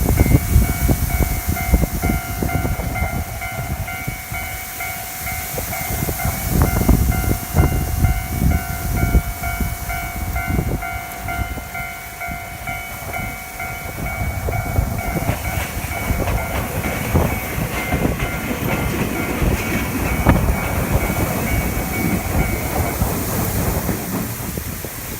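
Railway level-crossing warning bell ringing in a fast, even repeat while a Jōmō Electric Railway train runs over the crossing, the train's noise heaviest past the middle; the bell stops near the end. Gusts of wind buffet the microphone.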